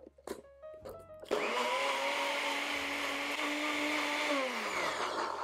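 NutriBullet personal blender blending rolled oats and water into oat milk. A few light knocks as the cup is set on the base, then the motor runs at a steady whine for about three seconds and winds down with a falling pitch near the end.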